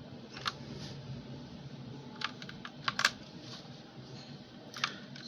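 Keys of a PC Power mechanical keyboard with red linear switches being pressed one at a time: a few scattered clicks with pauses between them, the densest group about three seconds in.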